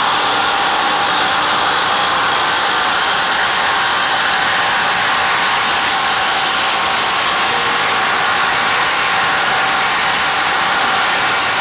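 Two cordless impact drivers, a Stanley Fatmax and a Craftsman, running together under heavy load as they bore large bits into a thick wooden beam. The sound is a loud, steady, unbroken rattle with no let-up.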